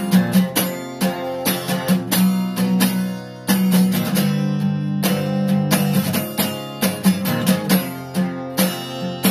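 Acoustic guitar strummed in a steady rhythm, its chords ringing between strokes.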